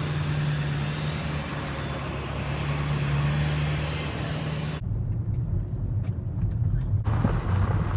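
Car driving, with a steady engine hum under road noise. The sound changes abruptly about five seconds in and again about two seconds later.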